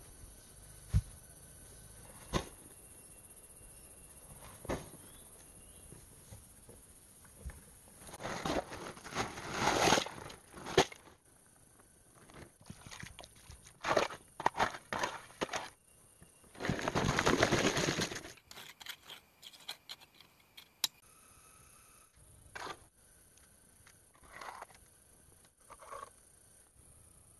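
Masonry work by hand: a few sharp knocks of concrete blocks set down on the ground, then long stretches of scraping and stirring as wet cement mortar is worked with a stick in a metal basin, and a trowel scraping mortar onto a block.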